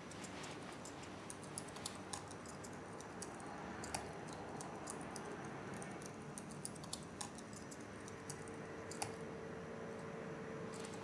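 Faint, irregular light clicks, several a second at times, over a steady low hiss.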